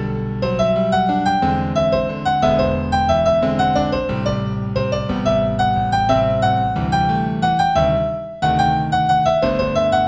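Solo piano playing a melody in G major at a moderate tempo, the notes struck in an even rhythm. There is a brief break about eight seconds in before the playing resumes.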